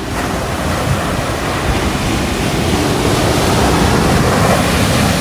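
Ocean waves breaking on a beach, a steady loud rush of surf mixed with wind buffeting the microphone.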